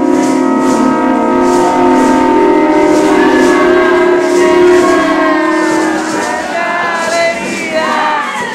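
Several conch-shell trumpets blown together in long, steady notes at slightly different pitches, dying away about six seconds in. Voices with wavering pitch take over near the end.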